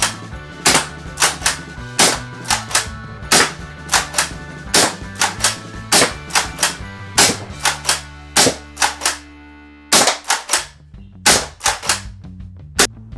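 Rekt OpFour CO2-powered foam dart blaster firing repeatedly, a string of sharp pops roughly one or two a second, with a short pause about nine seconds in, over background music.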